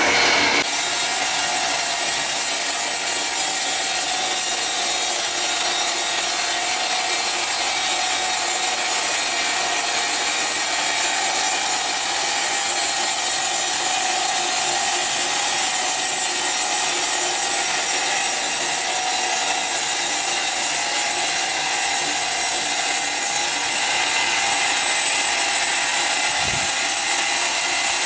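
Power sawing machine cutting through ironwood: a steady, even rasp of the blade in the hard wood, with a faint held tone beneath it.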